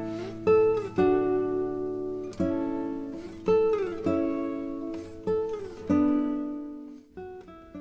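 Background music: a plucked acoustic string instrument playing slow chords, each struck and left to ring and fade, with a few sliding notes.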